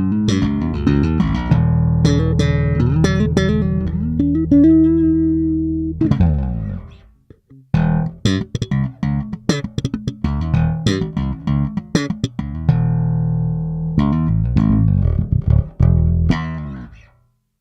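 Foals FJB6-V five-string electric bass playing two phrases of plucked notes with sharp, percussive attacks. It slides down in pitch about six seconds in, pauses briefly, then plays on before the last notes ring out near the end.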